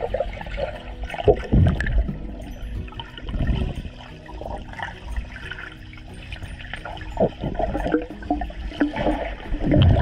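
Pool water heard underwater: muffled sloshing and bubbling from a child swimming, rising and falling in uneven surges.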